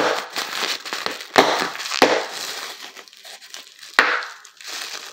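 Clear plastic packaging crinkling as it is squeezed and pulled open by hand, with several sharp clicks along the way.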